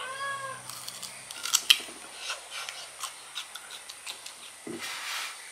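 A person chewing a crisp raw ambarella (kedondong) fruit close to the microphone: a run of crunches and clicks. A brief high vocal squeak comes at the start, and a breathy hiss comes near the end.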